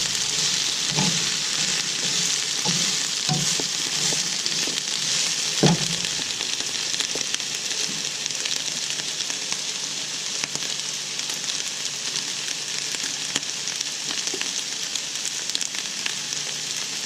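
Chopped onions and bell pepper sizzling steadily in olive oil in a frying pan. A few knocks against the pan from stirring come in the first six seconds, the loudest about six seconds in.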